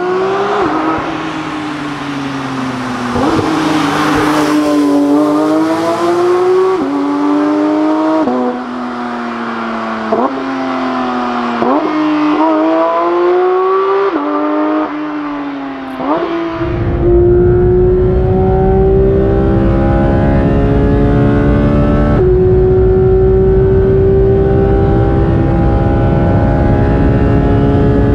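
Porsche GT3's naturally aspirated 4.0-litre flat-six accelerating hard at high revs. The pitch climbs and drops sharply at each quick upshift, roughly every two seconds. About two-thirds of the way through, the sound changes to a steadier, slowly rising engine note over a heavy low rumble.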